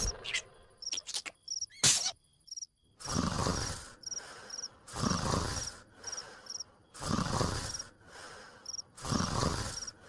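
Cartoon snoring sound effect: a long snore about every two seconds, starting about three seconds in, with evenly repeating cricket chirps between the snores. A few clicks and a short sharp hit come in the first two seconds.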